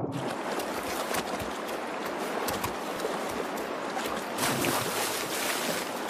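Shallow salmon stream running, with repeated splashes as a black bear cub lunges at fish in the water; the splashing is louder about two-thirds of the way through.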